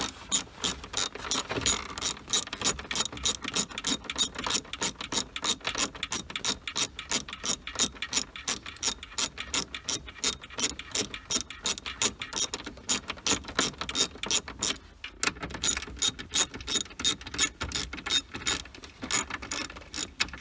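A hand ratchet clicking in quick, even strokes, about four clicks a second, as it runs small screws in; it stops briefly about three quarters of the way through, then carries on.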